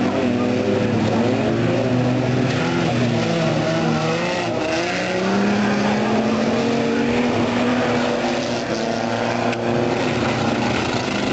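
Several banger-racing cars' engines running and revving at once, their pitches rising and falling over one another in a continuous loud din.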